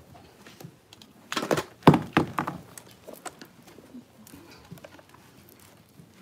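A short burst of several knocks and thumps about a second and a half in, then low room noise.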